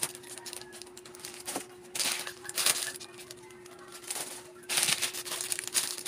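Plastic instant-noodle packets crinkling as they are handled, in two main bursts about two and about five seconds in, over a faint steady hum.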